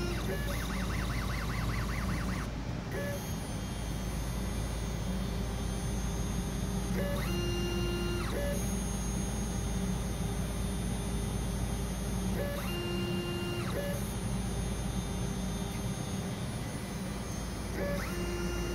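Cavro 726790 motorized syringe pump with a 1000 µl syringe running its stepper motor drive through repeated strokes: a steady electronic-sounding whine of several fixed tones. Every four to five seconds the pitch briefly glides up or down and settles on a new set of tones as a stroke starts or stops.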